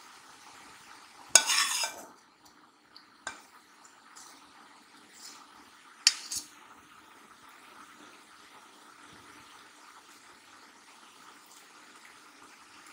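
Kitchen utensil scraping and clinking against cookware: a loud scrape lasting under a second about a second in, a light click, then a sharp clink and a smaller one about six seconds in, over a faint steady hum.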